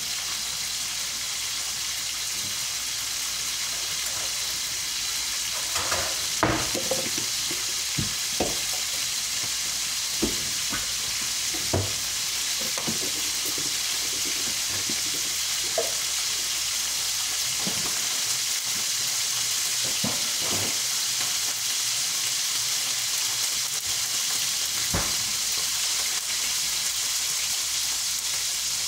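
Salted hairtail frying in oil in a pan: a steady sizzling hiss, with occasional short sharp knocks against the cookware.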